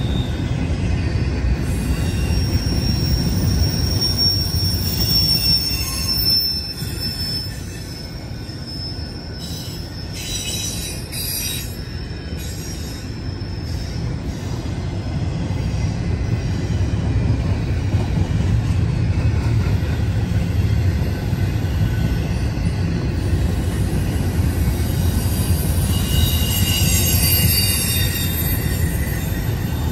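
Double-stack intermodal freight train rolling past: a steady low rumble of steel wheels on rail. High-pitched wheel squeal rises over it from about two to seven seconds in and again near the end, and the rumble eases for a few seconds in the middle.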